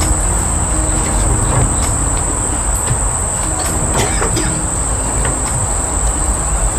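A steady, high-pitched insect drone, held on one unbroken pitch, over a constant low rumble.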